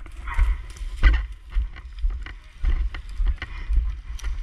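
Footsteps swishing and crunching through tall dry grass at a walking pace, with wind buffeting the microphone in low rumbles.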